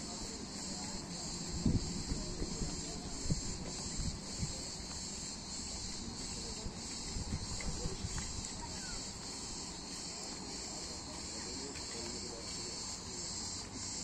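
Insects chirring in a steady, high, pulsing drone, with a few low thumps about two and three seconds in.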